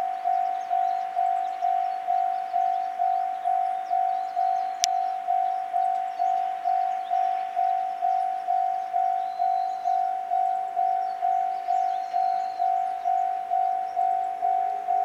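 Railway level crossing warning bell ringing steadily, a single electronic ding repeating a little under three times a second. A single sharp click about five seconds in.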